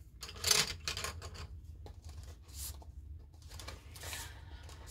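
Colored pencils clicking and rustling as they are rummaged through by hand, several short scrapes spread through.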